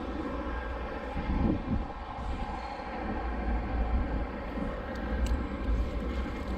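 A distant engine drone holds steady throughout, over a low rumble of wind on the microphone.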